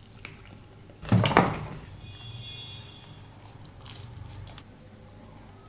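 Close-miked eating: a loud bite about a second in, then quieter chewing and mouth sounds.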